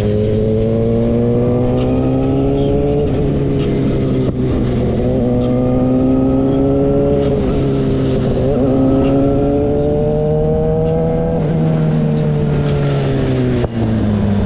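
Motorcycle engine heard from the rider's seat while riding, its pitch climbing slowly and dropping back several times, then falling away near the end as it slows, over steady road and wind noise.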